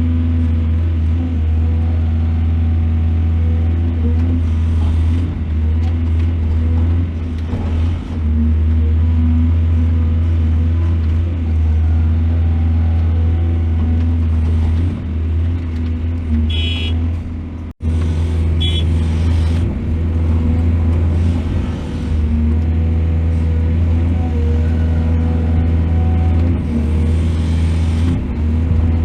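Heavy diesel engine of an excavator running steadily with a deep, even drone. A couple of short metallic clinks sound a little past the middle, and the sound cuts out for an instant just after.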